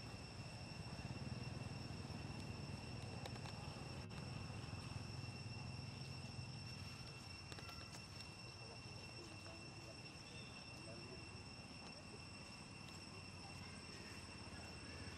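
Faint forest ambience: a steady, high-pitched insect drone runs unbroken, over a low rumble that eases off about halfway through.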